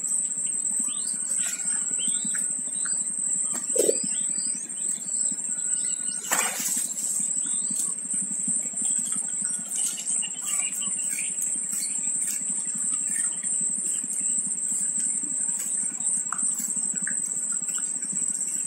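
Spotted dove feeding its squabs at the nest: scattered faint chirps and a brief flutter of wings about six seconds in, over a steady high-pitched whine and a low background hum.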